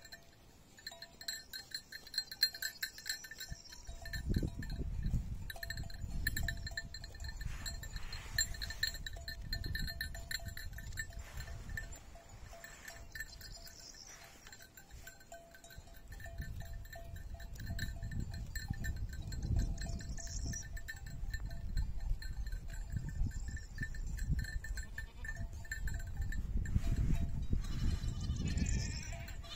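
Flock of sheep grazing, with a sheep bleating now and then and a clearer bleat near the end. A low rumble runs under it from a few seconds in.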